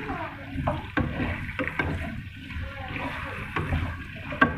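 Beef pieces frying in hot oil in a karahi, stirred with a wooden spatula that scrapes and knocks against the pan several times over the sizzle.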